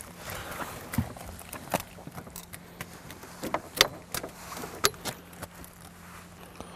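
Handling noise from unhooking a small rainbow trout in a landing net: scattered sharp clicks and knocks as the metal jigging spoon and hook clink, over a faint steady hum.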